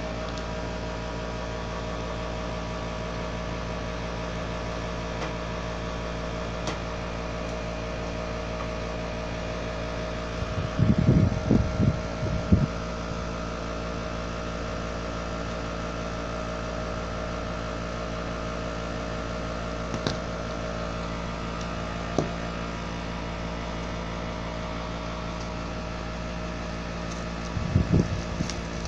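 A steady hum made of several steady tones, as from a fan or mains-powered appliance, running throughout. Bursts of handling noise from a hand on the recording phone come about ten seconds in and again near the end, with a few single clicks between.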